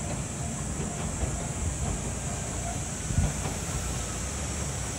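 Single diesel railcar running away across a railway girder bridge: a steady low rumble of engine and wheels on the bridge, with a single thump about three seconds in.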